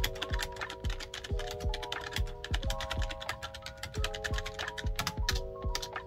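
Fast, continuous typing on a computer keyboard: a dense run of key clicks. Under it, background music with sustained chords and a steady beat.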